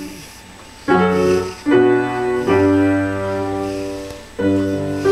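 Slow piano music: a few chords struck one after another and left to ring and fade, after a softer lull at the start.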